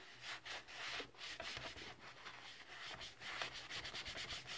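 A cloth rubs back and forth over the plastic side of an Epson WorkForce WF-2860 printer in quick, repeated wiping strokes, giving a soft, even swishing.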